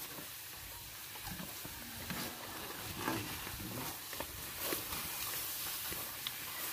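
Water buffalo hauling a wooden sled through deep mud: hooves squelching and the pole runners sliding and scraping in the wet mud, in soft, irregular strokes.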